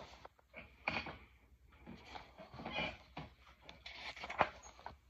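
A hardcover picture book being handled and turned over: a few short rustles and light knocks of the paper and cover, about a second apart, over a faint steady hum.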